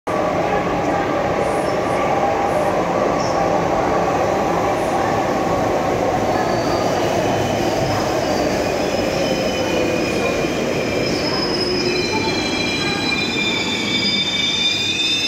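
Electric metro train running in beside the platform: a steady loud rumble of wheels on rail, with several high-pitched squeals building up over the last few seconds as it slows.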